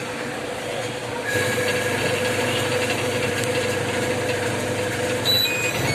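Washing machine motor running on a test bench, powered by a repaired Whirlpool washing machine control board, with a steady hum that gets louder about a second in. Near the end come a few short electronic beeps at different pitches.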